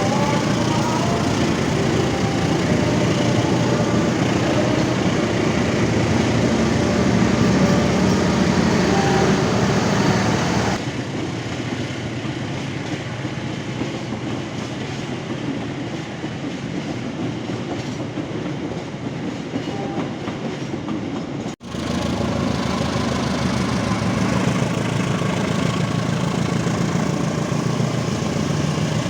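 Train running on the rails: a steady rumble of wheels on track with some clickety-clack. It drops abruptly to a quieter, duller rumble about 11 seconds in, cuts out for an instant near 22 seconds, and comes back louder.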